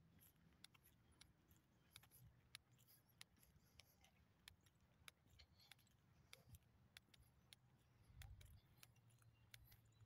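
Near silence, with faint scattered clicks and a brief low rumble about eight seconds in.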